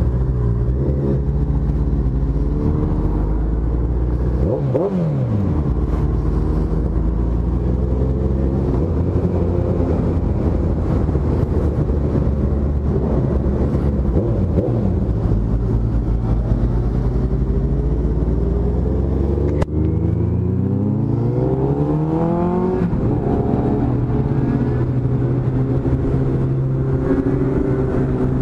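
Motorcycle engine running under way on a group ride. It drops in pitch about five seconds in as the bike slows, holds steady, then from about twenty seconds in rises steadily for a few seconds as it accelerates before settling at a higher pitch.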